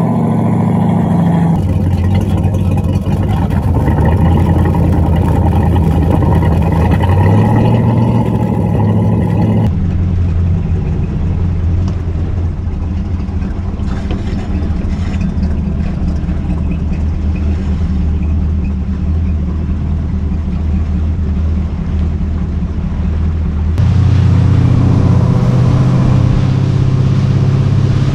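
The 160 hp Chris-Craft V8 of a 1962 Riva Florida runabout running at low revs just after a cold start. About 24 seconds in, the engine note rises in pitch and gets louder as the boat speeds up.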